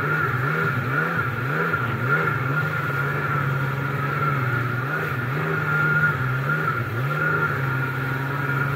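1998 Kawasaki SXI Pro stand-up jet ski's two-stroke engine running at low speed, its pitch dipping and climbing again over and over as the throttle is worked on and off, with water spray hissing at the hull.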